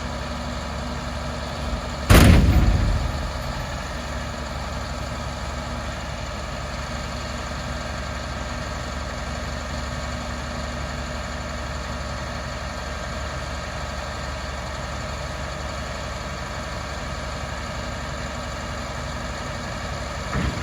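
MaxxForce DT turbo diesel of a 2012 International 7400 truck idling steadily. About two seconds in, a single loud bang rings out and dies away over about a second.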